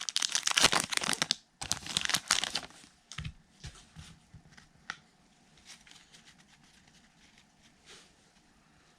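Trading card pack wrapper being crinkled and torn open in two dense bursts during the first few seconds, followed by faint ticks and soft rustles of cards being handled.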